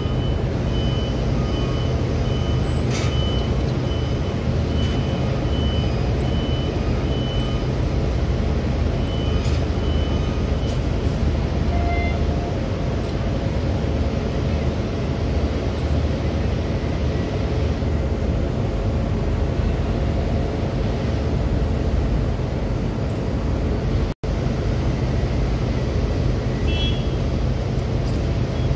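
Steady low drone of marine diesel engines, with a constant rushing noise over it. The sound cuts out for an instant once near the end.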